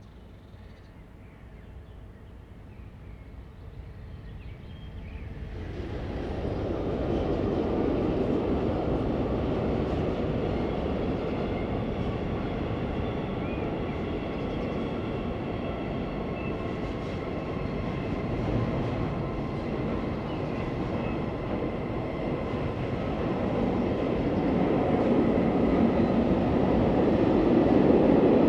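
SBB electric train running by on the line: its rumble builds up over the first few seconds, holds steady, then grows louder again near the end.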